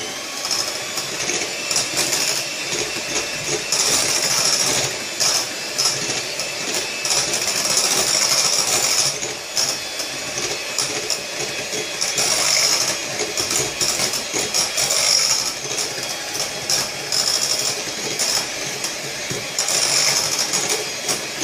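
Electric hand mixer running at speed, its beaters whipping milk and Chantilly cream powder in a glass bowl. The steady motor whine swells and dips repeatedly as the beaters move through the thickening cream.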